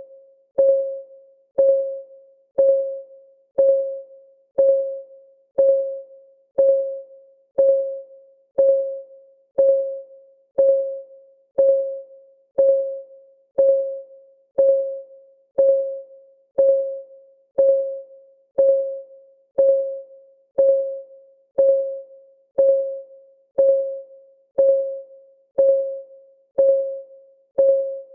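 Clock ticking sound effect of a countdown timer: one short, pitched tick every second, each dying away quickly, in a steady even rhythm.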